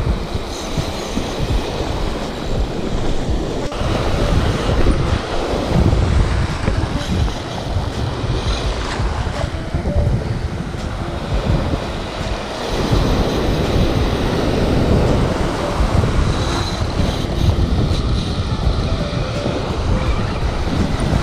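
Wind buffeting the microphone with a strong, irregular rumble, over the steady wash of ocean surf breaking on the beach.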